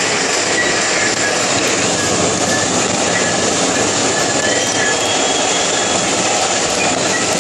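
Coloured smoke flares burning on paving stones with a loud, steady hiss.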